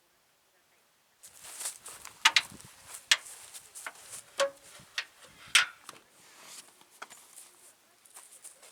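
A run of irregular sharp crunches and clicks, one or two a second, starting about a second in and growing fainter near the end.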